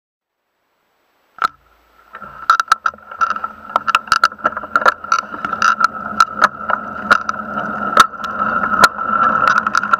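Mountain bike coasting downhill, rattling with many sharp irregular knocks over bumps in the road, over a steady high-pitched hum. It starts about two seconds in, after a single click.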